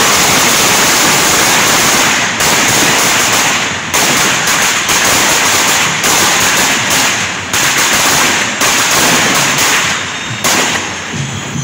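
A long string of firecrackers going off in rapid succession as one loud, unbroken rattle of bangs. It thins out near the end.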